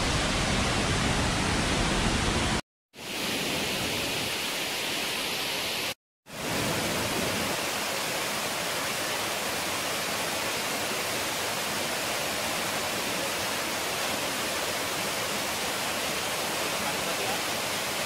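Steady rushing of a waterfall in full flow, an even wash of water noise. It cuts out to silence twice, briefly, about three and six seconds in.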